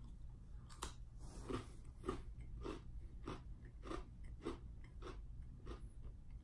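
A person bites into a crunchy Oreo sandwich cookie about a second in, then chews it in a steady rhythm of about nine crunches, a little under two a second.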